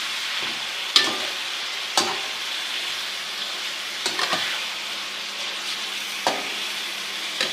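Chicken pieces frying in hot ghee with a steady sizzle. They are being stirred, and the utensil gives a few sharp knocks on the pot. This is the chicken being lightly seared before the spices go in.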